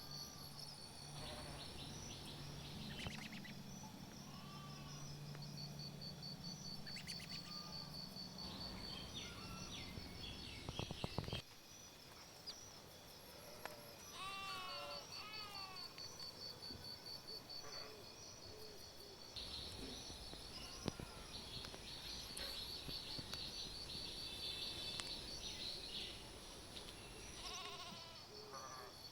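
Stray cats meowing again and again in short calls that rise and fall in pitch, over a steady high pulsing chirr of insects. A low hum cuts off abruptly about a third of the way in.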